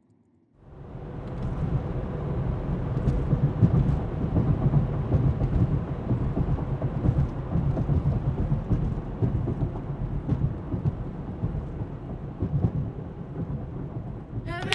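Wind buffeting the microphone outdoors: a gusty low rumble that fades in about half a second in and keeps on, with a few faint clicks in it.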